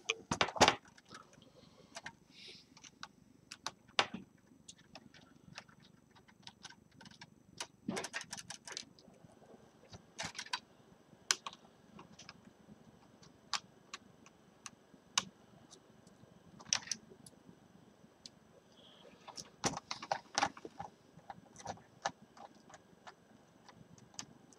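Small screwdriver working out the screws that hold a laptop's LCD panel in its lid: scattered light clicks and ticks of metal on metal and plastic, with a few short clusters of quicker clicks.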